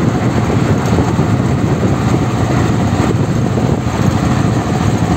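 Strong wind buffeting the microphone of a moving vehicle: a loud, uneven low rumble, with vehicle engine and road noise beneath it.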